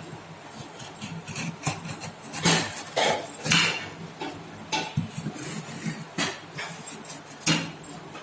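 A spoon scraping and knocking against a bowl in short, irregular strokes as frozen homemade ice cream is scooped out into another bowl.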